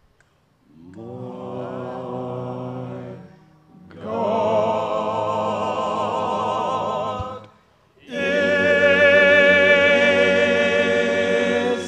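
Choir singing three long held notes with vibrato, each louder than the one before, with short breaks between them.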